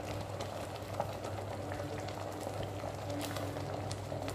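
Sambar simmering in an open pressure cooker, bubbling steadily, with a low steady hum underneath.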